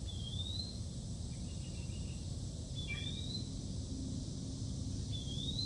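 Steady low outdoor rumble with a bird's short rising whistled note, repeated three times about every two and a half seconds.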